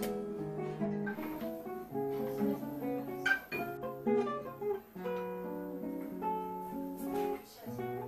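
Solo classical guitar playing background music: a plucked melody over held bass notes.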